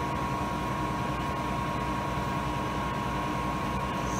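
Steady hum of running shop machinery, with a constant high whine over a low rumble.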